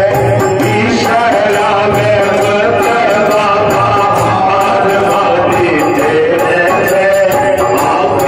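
Devotional song (bhajan): a voice sings a wavering melody over steady percussion, with a regular run of bright jingling strokes on top.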